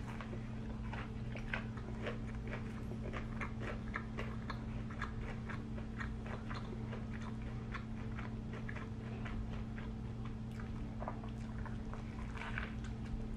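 A person biting into and chewing a fried chicken sandwich close to the microphone: a steady run of small, wet chewing clicks. She takes another bite near the end.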